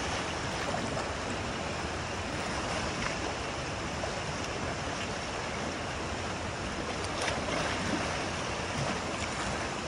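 Muddy river water rushing steadily, with splashing from Asian elephants wallowing and rolling in it.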